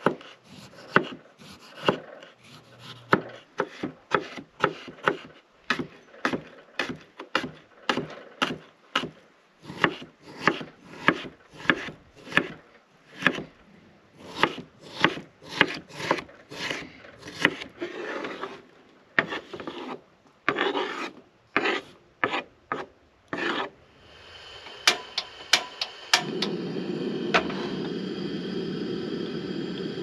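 Kitchen knife chopping raw potatoes on a wooden cutting board, in a steady run of strokes about twice a second. Near the end a steady rushing hiss sets in from the camp stove burner under a frying pan.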